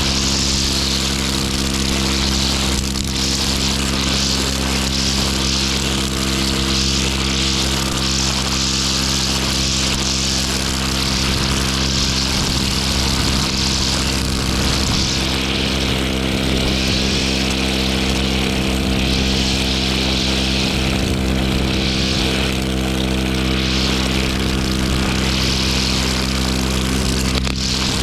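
Petrol brush cutter engine running steadily at constant speed.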